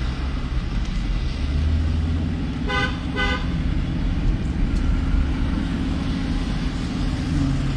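Steady low rumble of a car on the move, heard from inside the cabin. A vehicle horn toots twice in quick succession, a short blast each, about three seconds in.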